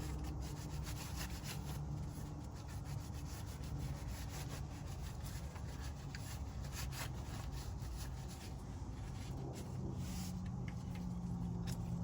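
Ratchet and 17 mm socket clicking and rubbing irregularly as the engine oil drain plug is screwed back in and snugged up. A low steady hum sits underneath.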